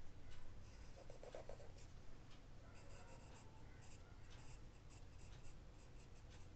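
Faint scratching of a graphite pencil on sketchbook paper, drawing many short, quick shading lines one after another.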